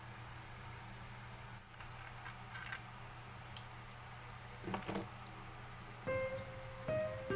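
Faint steady hum with a few light clicks and a couple of knocks, then plucked-string background music begins about six seconds in.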